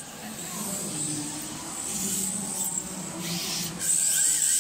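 Electric radio-controlled drift cars running and sliding on a polished indoor track: a steady high whine over a hissing haze, growing louder near the end as a car passes close.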